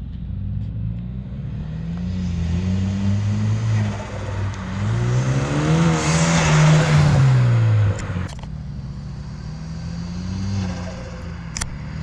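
2013 Hyundai Veloster Turbo's 1.6-litre turbocharged four-cylinder accelerating hard, the revs climbing, dipping at a gear change, and climbing again with a rising turbo hiss near the top. About eight seconds in the throttle is lifted and the engine drops back to a steadier, lower note.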